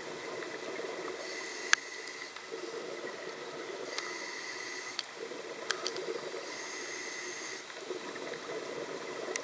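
Scuba diver breathing through a regulator underwater: three hissing inhales about two and a half seconds apart, each followed by a rumbling, bubbling exhale. A few sharp clicks come through as well, the loudest just before the end of the first inhale.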